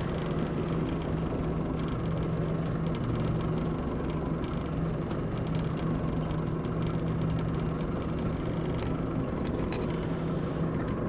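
Boat engine running steadily with an even low hum, with a few light clicks near the end.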